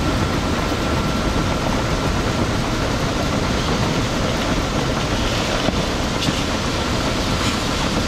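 Grain-handling machinery running steadily and loudly as yellow corn is loaded out of a grain bin into a truck: a continuous dense rush and rumble with a faint steady whine.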